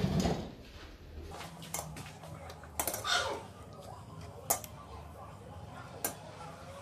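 Fine-mesh metal sieve knocking against the rim of a stainless steel mixing bowl while flour is sifted through it: a few sharp metallic clinks spread out over a soft background.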